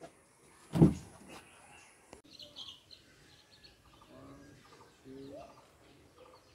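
A short bump about a second in, then faint bird chirps and short calls, with fowl among them.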